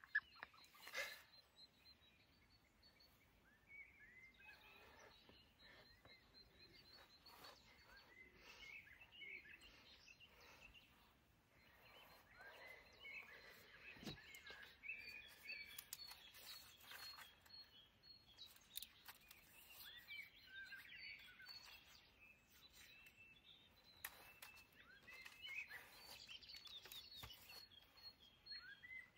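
Faint birdsong: several small birds chirping and calling on and off throughout, with a few sharp clicks and knocks from handling a trekking pole, the loudest right at the start and one about halfway through.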